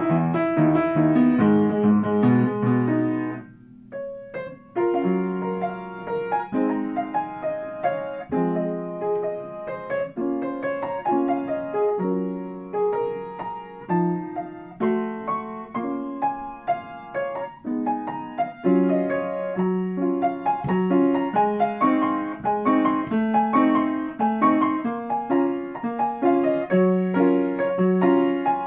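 Upright piano being played in a fast, busy passage of melody over chords. There is a brief break about four seconds in, then the piece continues with a steady pattern of repeated chords under the tune.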